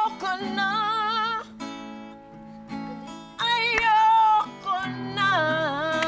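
Acoustic guitar playing a blues accompaniment under a woman singing three phrases with heavy vibrato.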